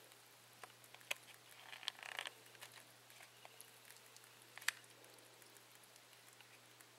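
Faint clicks and rustles from a baby cottontail rabbit being syringe-fed on hay: two sharp clicks, about a second in and near five seconds, and a short rustle around two seconds, over a faint steady hum.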